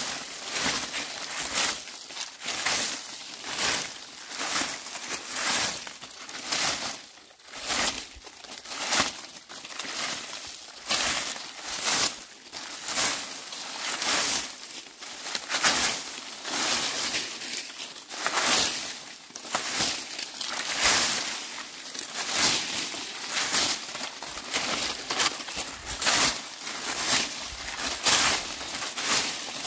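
Dry leaves being swept: a run of scratchy, rustling swishes, a little more than one stroke a second, keeping an even rhythm.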